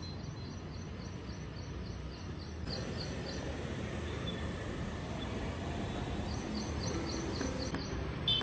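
Outdoor ambience from a balcony over a residential lane: a steady low background rumble with a high chirp repeated about three to four times a second, in two runs. A brief sharp click comes near the end.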